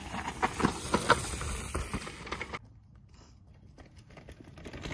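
Mountain bike tyres rolling over dry leaf litter and dirt, with many small crackles and clicks. The sound cuts off suddenly about two and a half seconds in, then builds again faintly near the end as a bike comes closer.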